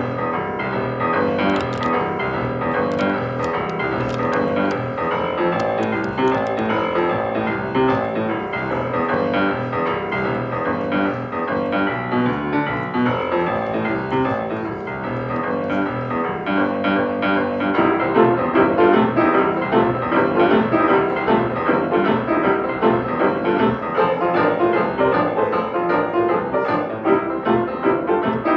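Grand piano playing an upbeat boogie piece, solo at first. A little past halfway a second player joins at the same keyboard, and the playing grows louder and fuller.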